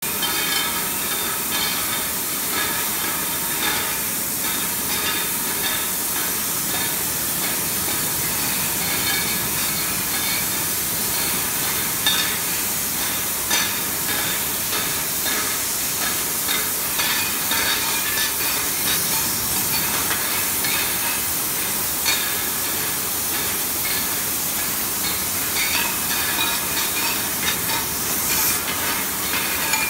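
Gas burner flames hissing steadily on a glass beaker making machine, over the machine's irregular light clicks and clinks of metal and glass, with a few louder knocks.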